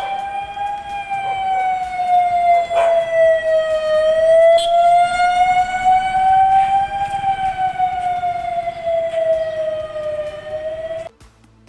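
Police vehicle siren wailing, its pitch rising and falling slowly, about one full cycle every six seconds. It cuts off suddenly near the end.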